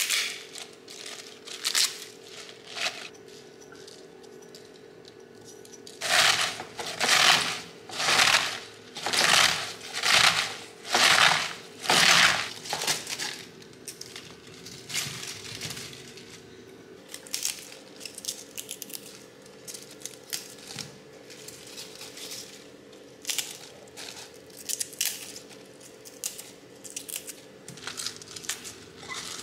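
Crisp bok choy leaves and stems being broken up and squeezed by hand in a glass bowl, making crunching and rustling noises. In the middle comes a run of about eight loud crunching squeezes, each under a second long. A faint steady hum sits underneath.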